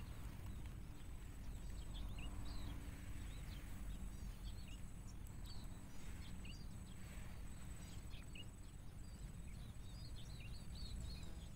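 Quiet outdoor ambience: small birds chirping in short, scattered calls over a low steady rumble.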